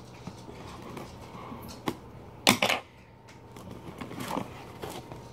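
A blade cutting the tape on a cardboard box: a few sharp clicks, then a short run of loud scraping and clicking about two and a half seconds in, and lighter handling of the cardboard after it.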